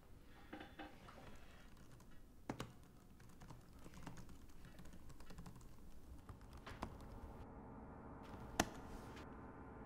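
Typing on a laptop keyboard: a run of light key clicks, with a few harder keystrokes standing out. A faint steady hum comes in from about seven seconds in.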